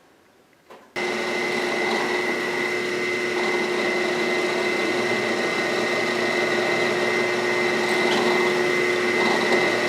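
Electric drill motor running steadily while drilling holes in a wooden guide. It starts about a second in and keeps an even pitch throughout.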